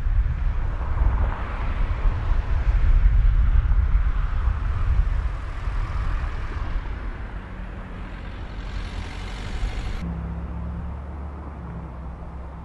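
Deep, noisy rumble of Mount Etna's lava fountain erupting, slowly fading. About ten seconds in it cuts off abruptly to a quieter, steady low hum.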